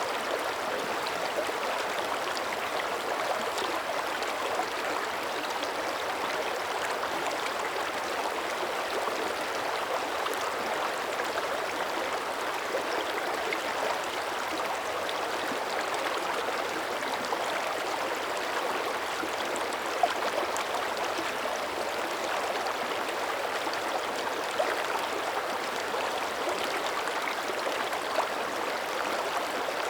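Shallow mountain creek running steadily over stones, a continuous babble and splash with a few slightly louder splashes along the way.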